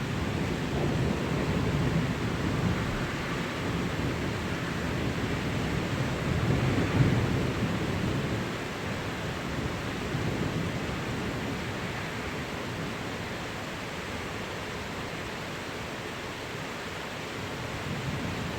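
Thunderstorm: steady rain with low rolling thunder that swells and fades several times.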